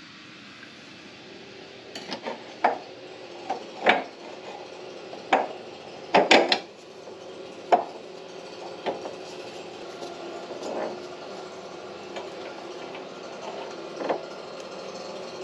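Metal hand tools clinking and knocking against the steel of a car's rear subframe and its bolts: about ten irregular sharp strikes, a loud cluster about six seconds in, over a faint steady hum.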